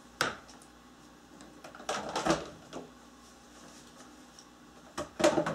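Plastic dolls and a toy car being handled: a few scattered clicks and knocks, with a cluster about two seconds in and another near the end.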